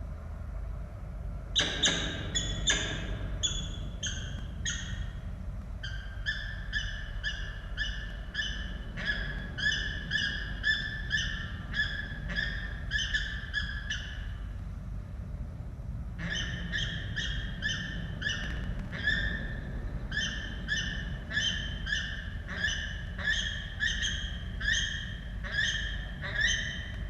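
Peregrine falcon calling in a long run of short, harsh repeated notes, about two a second, with a brief pause about halfway through. A steady low hum runs underneath.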